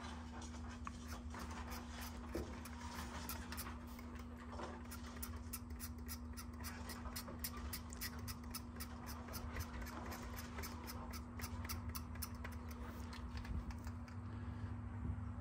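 A hobby knife blade lightly scratching the painted surface of a fishing lure, a rapid, irregular run of fine ticks and scrapes that roughs up the paint into a hair-like texture. A steady low hum runs underneath.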